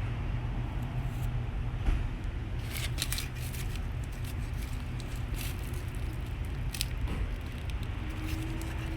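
Crackly rustling of a paper sandwich wrapper in a few short bursts as a fast-food chicken sandwich is handled and opened. There is a single knock about two seconds in, over a steady low hum.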